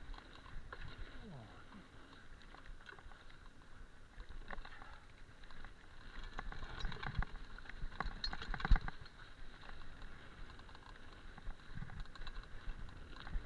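Mountain bike riding down a dirt trail, heard from a camera on the bike: steady tyre and rushing noise with frequent rattles and knocks from the bike over bumps, busiest about seven to nine seconds in, where one sharp knock stands out.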